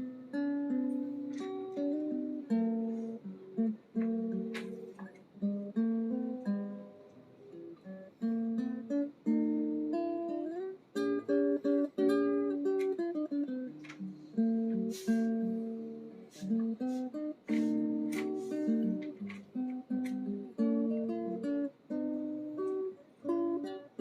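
Background music: acoustic guitar playing a plucked and strummed melody.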